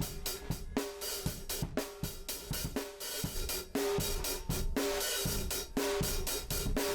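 Drum overhead recording of a drum kit playing back through a stereo 1176-style hardware compressor: cymbal wash with regular snare and kick hits, each snare ringing briefly. About four seconds in it gets louder and flatter.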